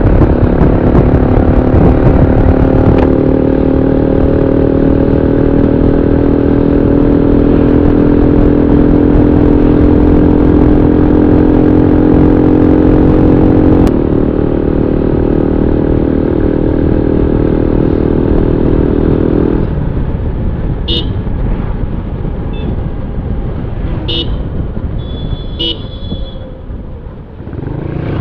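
Motorcycle engine running steadily at cruising speed under a rush of wind and road noise. About twenty seconds in the engine tone drops away, and several short horn beeps sound over the next few seconds.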